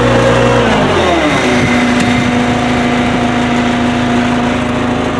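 Old skid steer's engine running. About a second in its speed drops, then it holds steady at the lower speed until it begins dropping again at the very end.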